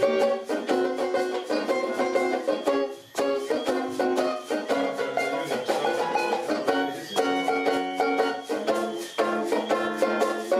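Mento banjo played alone in an instrumental passage: rapid picked notes with a short break about three seconds in.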